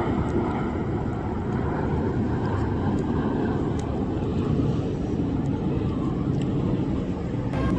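Steady low engine rumble with a few faint clicks.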